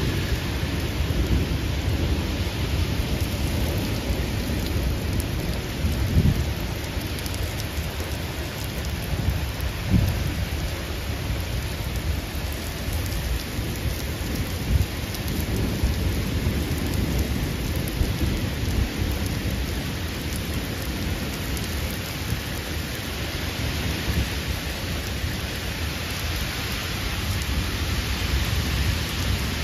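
Heavy, steady downpour of a thunderstorm, with a constant low rumble underneath. Brief louder bumps come about six and ten seconds in.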